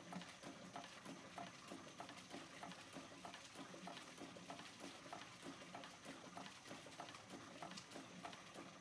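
Faint sound of an 1881–82 6-inch Rider hot air engine running, with an even soft knocking about two and a half times a second. Water from its pump splashes steadily into a metal tub.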